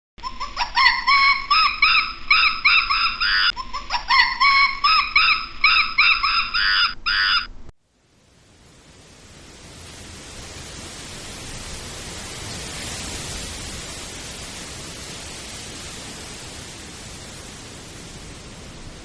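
Two runs of rapid, high-pitched animal calls, each rising at its start, over about seven seconds. Then a steady hiss that swells up and holds.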